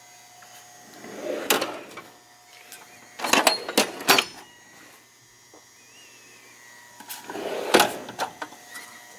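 Steel tool cabinet drawers being pulled open and pushed shut, with sharp metal clacks as they reach the end of travel and the tools inside shift: a single clack, then a quick run of several, then another group near the end.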